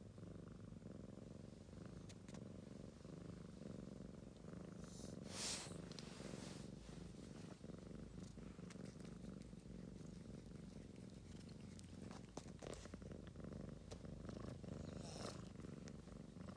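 Ragamuffin cat purring steadily.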